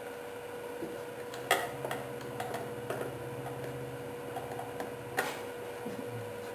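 Screws being driven back into the plastic pedal housing of a ride-on toy: a few light clicks and a low, faint hum for about three seconds in the middle.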